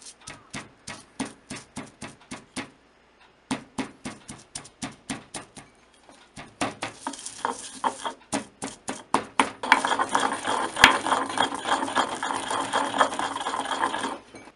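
Wooden pestle pounding chopped nobiru (wild garlic) in a ridged ceramic suribachi: quick knocks, about five a second, in runs with short pauses between. For the last four or five seconds the pounding turns into grinding, a continuous scraping of the pestle against the bowl's ridges, as the greens are worked into a paste.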